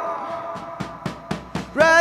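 Live rock band: a held chord fades out, then a short drum fill of about six evenly spaced hits, and the full band with guitars comes back in loudly near the end.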